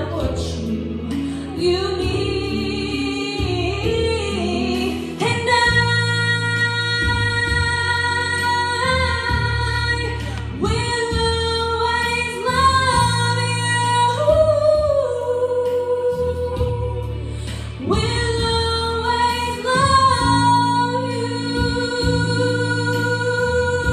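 A woman singing solo into a microphone with accompaniment, holding long sustained notes, amplified through a hall's sound system.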